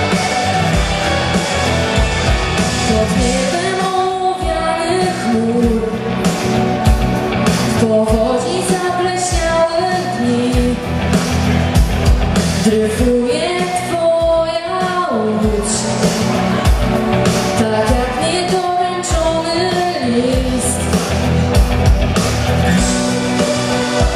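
A woman singing a pop song into a microphone over instrumental accompaniment with a steady beat, amplified live through a stage sound system.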